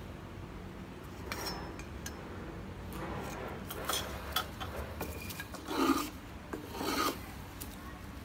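Several uneven scraping strokes of a hand tool working a piece of pine, the two loudest in the second half.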